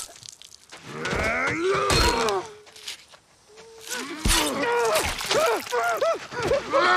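Men groaning and grunting in pain in two stretches, with a few heavy thuds of blows landing during a close-quarters axe fight.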